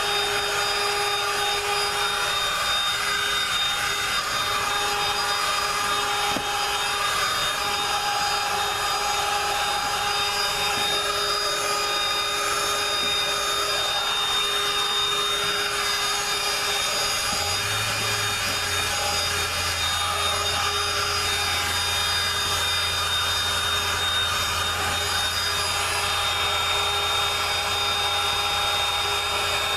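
Dirt Devil Quick Flip Pro cordless handheld vacuum running steadily with a constant motor whine, its nozzle worked over car carpet and seat upholstery.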